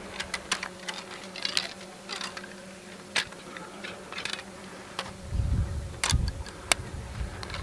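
Honeybees humming steadily around an open hive, under many small clicks and scrapes as wooden frames and pieces of comb are handled. A low rumble joins in about five seconds in.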